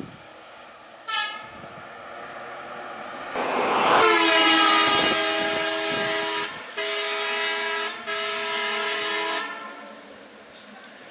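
A bus horn sounds a short toot about a second in. Then it holds a long blast of several steady pitches at once, from about four seconds in, briefly broken twice and stopping near the end.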